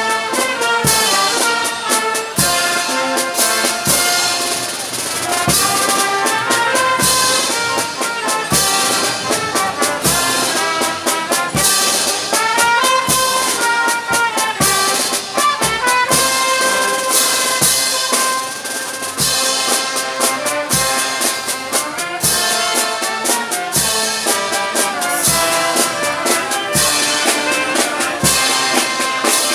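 Marching brass band playing a tune: trumpets and trombones carry the melody over a sousaphone bass, with drums keeping a steady beat.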